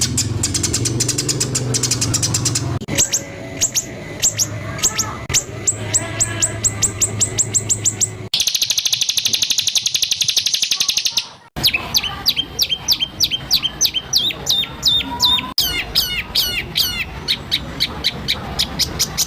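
Songbird song from several spliced recordings: rapid runs of sharp repeated notes, several a second, a very fast buzzing trill for about three seconds in the middle, then series of quick downward-sweeping whistled notes. The clips change abruptly several times, the kind of harsh rapid bursts ('tembakan kasar') used as master song for white-rumped shamas.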